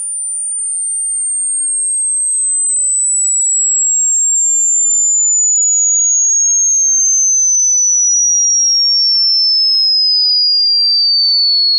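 Hearing-test sweep: a single pure, very high tone sliding slowly and steadily lower in pitch. It grows louder over the first few seconds, then holds. It is meant to find the point at which the listener starts to hear the high-pitched sound.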